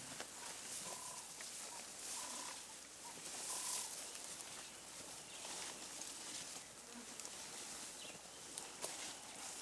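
Quiet bush ambience: a few short, high calls from birds in the first few seconds over a faint hiss, with a light click near the end.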